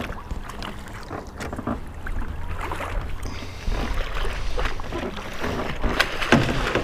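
Hooked channel catfish thrashing and splashing at the surface beside the landing net, over a steady low wind rumble on the microphone. The sharpest splashes or knocks come near the end.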